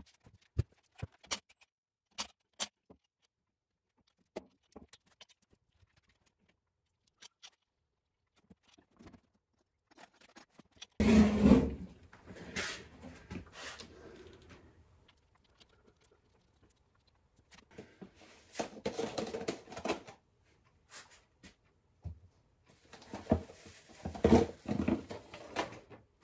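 Shop handling noises: a few sharp clicks of small metal parts in the first seconds, then bursts of rustling and scraping. Near the end, the wrapping rustles as a camshaft is pulled out of its shipping tube.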